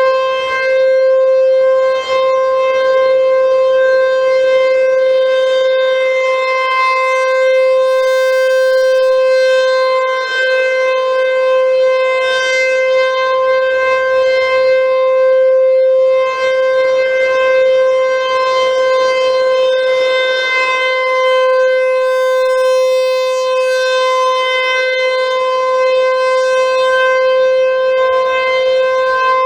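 An American Signal (ACA/ASC) T-135 outdoor tornado siren sounding on a test, holding one steady, loud tone with only slight wavers in loudness.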